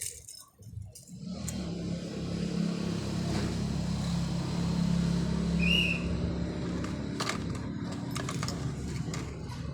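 A motor vehicle engine comes in about a second in and runs steadily, with a few clicks near the end.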